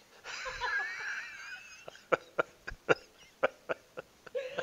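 Laughter: a high, wavering laugh over about the first second and a half, then a man chuckling in short breathy bursts.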